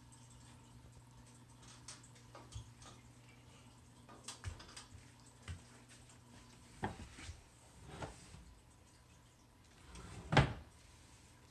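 Scattered light knocks and rustles of a child moving about, then about ten seconds in a louder thump as a dresser drawer is pulled open. A faint steady hum lies underneath.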